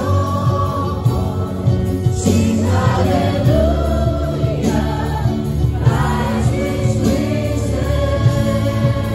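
Live praise-and-worship music: several voices singing together over a church worship band with keyboards.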